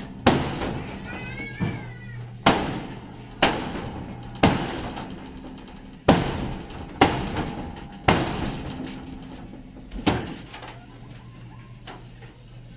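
Hammer blows on the metal siding of a vehicle body being stripped: about eleven sharp strikes, roughly one a second, each ringing briefly, then only faint knocks after about ten seconds.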